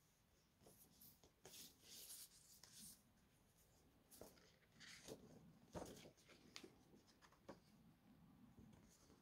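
Faint rustling of paper and card, with soft taps and clicks as a DVD case and its cardboard slipcase are handled.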